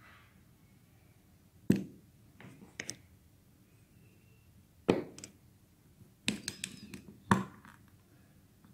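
Shower door roller assemblies, chrome-plated metal bodies with nylon wheels, clicking and knocking as they are handled and set down on a tabletop: a few separate sharp knocks, then a quick cluster of clicks near the end.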